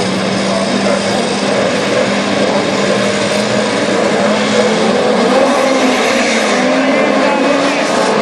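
Engines of several historic racing cars running at low speed, their pitch holding steady and then drifting slowly up and down as the cars roll past together.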